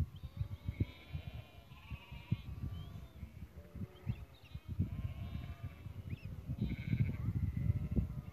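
A mob of livestock bleating, several calls overlapping and repeating throughout, with a dense cluster near the end. An irregular low rumble runs underneath.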